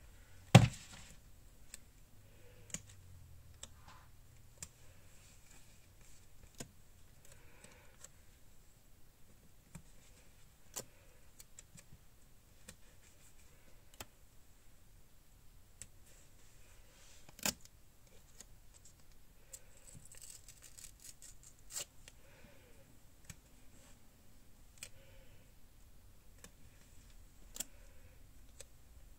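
Paper stickers being handled and pressed onto a journal page: faint paper rustles and scattered light taps and clicks, with one sharp knock about half a second in.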